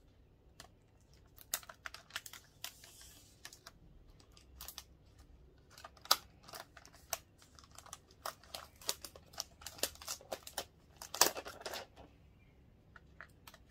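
Clear plastic protective wrap on a new laptop crinkling and crackling in irregular bursts as it is peeled off by hand, with a longer, louder rustle near the end.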